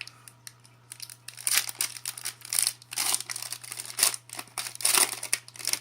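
Trading-card pack wrapper being torn open and crinkled by hand, in irregular scratchy rustles that begin about a second in.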